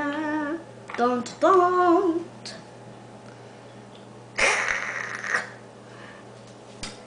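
A child's voice making short, drawn-out vocal sounds over the first two seconds, then about a second of breathy hissing a little past the middle.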